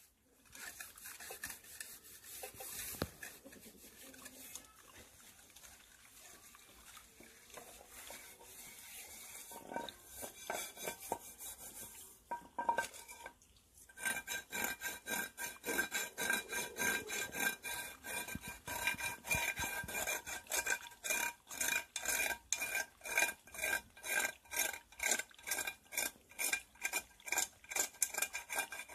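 A high rasping hiss that turns, about halfway through, into a fast, even rhythm of rasping strokes, about two a second.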